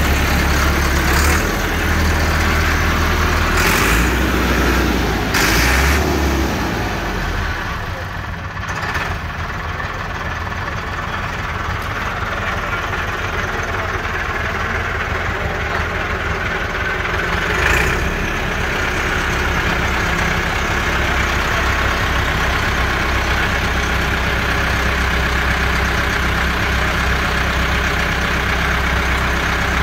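Massey Ferguson 385 tractor's four-cylinder diesel engine idling steadily just after starting, with a few short knocks along the way.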